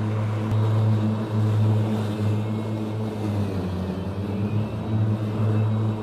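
Ryobi 80V 54-inch electric zero-turn mower cutting grass, its brushless blade motors spinning the twin blades at the low blade-speed setting: a steady electric hum with a low drone.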